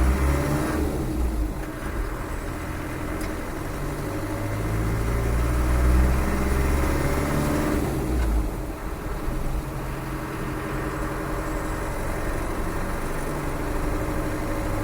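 Land Rover 300Tdi 2.5-litre four-cylinder turbodiesel, freshly rebuilt, driving the vehicle along the road, heard from inside the cab. The engine note builds to about six seconds in, drops back a little after eight seconds, then runs steadily.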